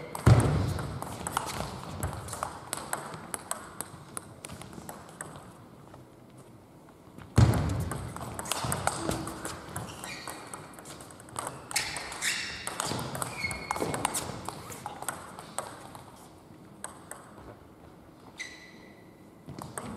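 Table tennis rally: the plastic ball clicking off the bats and the table in quick runs, with brief high shoe squeaks on the hall floor. Two heavy thumps stand out, one just after the start and one about seven seconds in.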